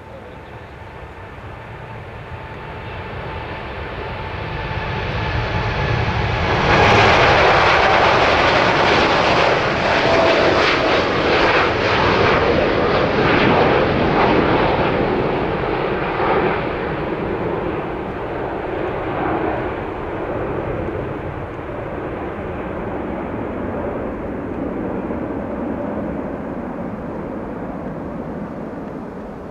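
Boeing 747-8 freighter's four GEnx-2B turbofans at takeoff power. The jet noise builds as the aircraft rolls past and lifts off, is loudest and crackling from about seven seconds in, then slowly fades as it climbs away.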